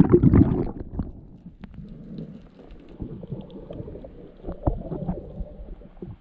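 A splash as the camera goes under the sea, then muffled underwater noise of a snorkeller swimming down: bubbling and knocks, with a second louder bubbling patch near the end.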